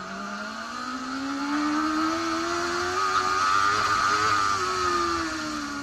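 Racing motorcycle engine pulling hard, its note climbing steadily for about four seconds and then easing off near the end, over a steady rush of wind.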